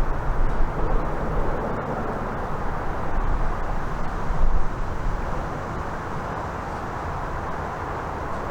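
A train running past, a steady rumbling noise from wheels and rails that eases slightly in the second half.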